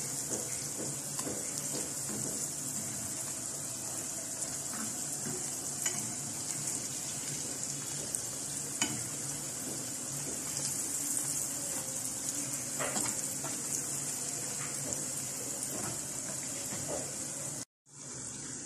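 Hot oil sizzling steadily as flattened mung-dal pakoras deep-fry in a pan, with a few light clicks of the fork against the pan. The sound cuts out briefly near the end.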